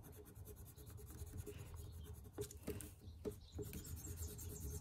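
Brown pencil scratching on paper as it draws a dark oval, with a few sharper strokes about halfway through.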